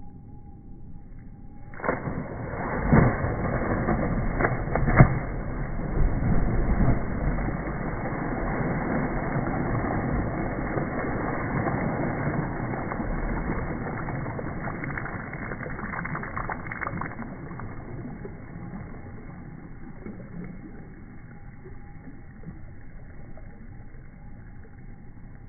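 A person's dive into a swimming pool, slowed down with the slow-motion footage: a sudden splash about two seconds in, stretched into a long, deep rush of churning water with a few sharp slaps early on, fading away over the next fifteen seconds or so. A faint steady hum is heard before the splash and again once it dies down.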